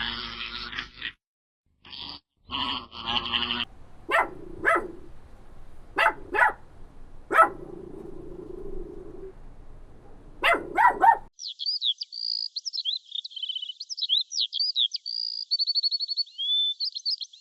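A dog barking in single barks and short pairs, about ten in all, for several seconds, followed from about eleven seconds in by a small songbird singing a fast, varied song of whistles and trills. Before the barking there are a few seconds of short, bright animal calls.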